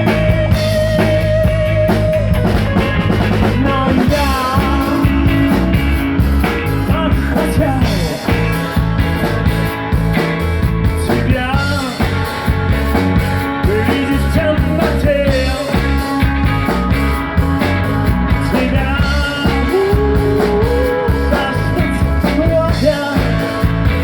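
Rock band playing an instrumental break over bass and drums, with a lead guitar line of bent and wavering notes, opening on a long note held with vibrato.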